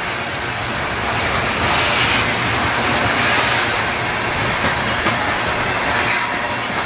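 Freight train's boxcars rolling past on steel wheels: a steady rumble and rattle of wheels on rail, with faint clicks.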